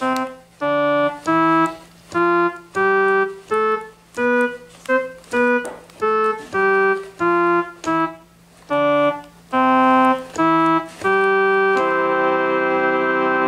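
Casio electronic keyboard with an organ-like voice, played by a hand-cranked K'nex punch-card mechanism: a slow melody of separate notes, some with a bass note underneath, each held at an even level and then cut off rather than fading. About twelve seconds in it lands on a long held chord.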